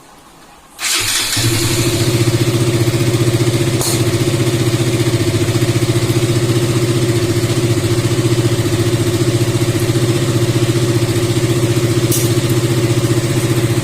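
KTM Duke 200's single-cylinder engine starts about a second in and idles steadily. It runs without the rasping 'khar khar' noise it made with the headlight on, now that the magneto coil has been cleaned and refitted.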